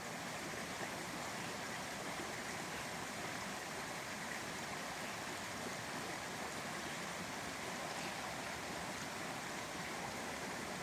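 Small woodland stream flowing, a steady even rush of water.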